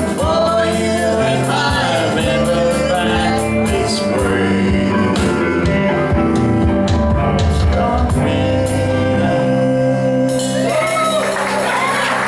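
A woman singing the last lines of a folk song with instrumental accompaniment, holding long notes to a close. Applause breaks out near the end.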